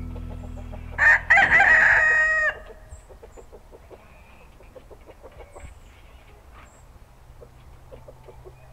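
A rooster crows once about a second in: a loud crow of about a second and a half that ends on a held note. Faint clucking follows.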